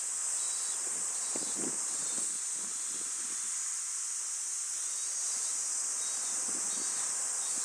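A steady, high-pitched chorus of insects buzzing without a break, with faint low rumbles now and then.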